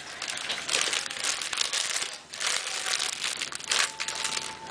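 Crinkling and rustling of packaging being handled, in two spells with a short break about two seconds in.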